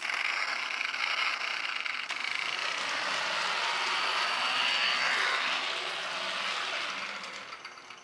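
Battery-powered toy motorcycle running across a wooden floor: a steady whirring, rattling noise that fades near the end.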